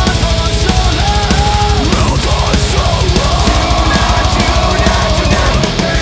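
Loud, fast heavy rock music with a driving drum beat.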